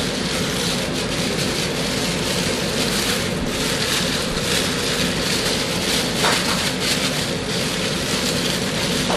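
Clear plastic bag crinkling and rustling as it is twisted and knotted shut, with a few sharper crackles. A steady rushing background noise runs underneath.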